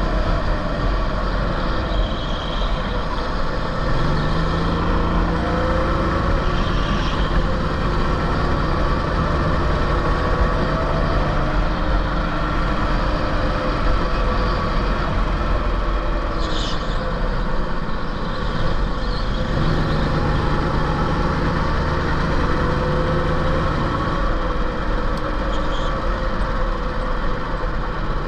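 Sodi rental kart's four-stroke engine running under load, heard onboard: the revs rise and fall, and twice hold steady for several seconds, over a constant rushing noise.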